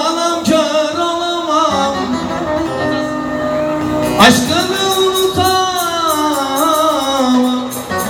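A man singing a Turkish folk song into a microphone in long, ornamented held notes, sliding up sharply about halfway through, over a live band with bağlama (saz) accompaniment.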